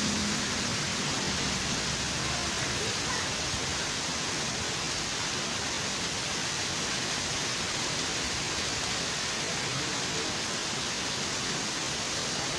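Steady hiss of heavy rain, even and unbroken throughout.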